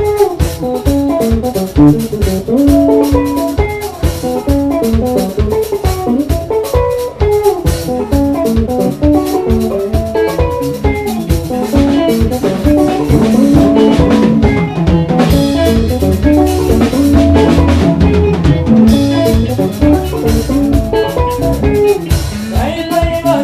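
Live band playing an instrumental passage: rapid, interlocking electric guitar lines over a steady drum-kit beat.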